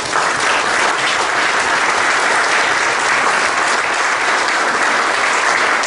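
Audience applauding steadily: dense, sustained clapping from many people.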